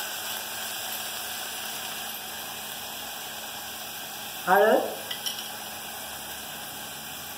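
Chopped onions frying in oil in a pot, a steady sizzle, with a wooden spatula stirring them at first.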